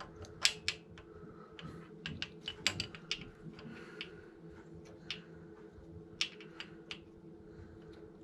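Irregular light clicks and clinks of a hand tool and metal fittings being handled on an engine's thermostat housing, over a faint steady hum.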